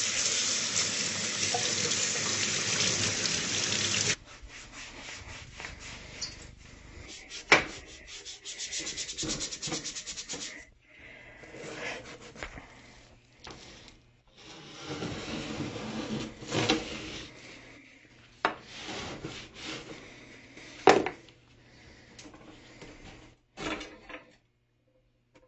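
Kitchen tap running into a stainless steel sink, shut off abruptly about four seconds in. Then a plastic scrub brush scrubs the countertop in short, uneven bouts, with a few sharper, louder strokes.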